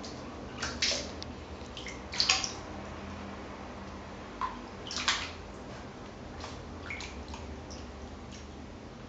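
Water splashing and sloshing in a plastic basin as a Sphynx cat wades and paws at it, with a few short, louder splashes about one, two and five seconds in.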